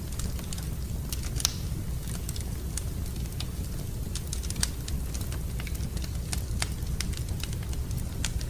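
Fire in a fireplace crackling, with irregular sharp pops over a steady low rumble; the loudest pops come about a second and a half in and again near the middle.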